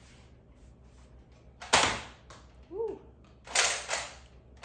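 Nerf blaster firing foam darts: one sharp puff of air about two seconds in, then two more shots in quick succession near the end.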